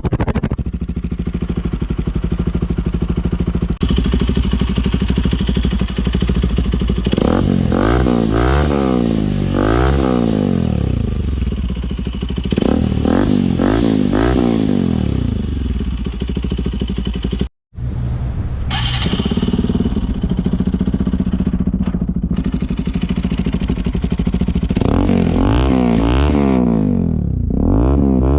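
Bajaj RS200's single-cylinder engine idling through a budget aftermarket Akrapovic slip-on exhaust. It is revved in quick blips three times, once a quarter of the way in, again around the middle and again near the end, the pitch climbing and falling with each blip. The sound breaks off for an instant about two-thirds of the way through.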